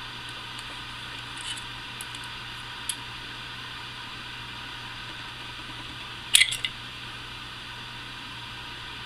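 Small clicks and clinks of air rifle parts being handled as a Daisy Powerline 880's exhaust valve assembly is worked out of its pump tube. A few light ticks come early, then a quick cluster of sharper clicks about six seconds in, over a steady low hum.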